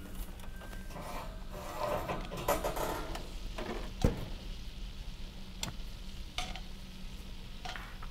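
Metal tongs stirring Swedish meatballs in an orange enamelled cooking pot, with several sharp clinks of the tongs against the pot and the sauce sizzling on the heat.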